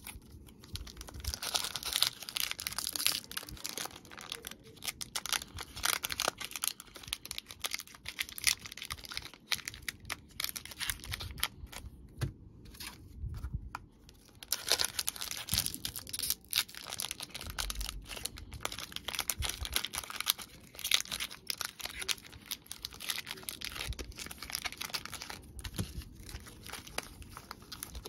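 Foil Pokémon booster-pack wrappers crinkling and being torn open by hand, in irregular bursts with short pauses.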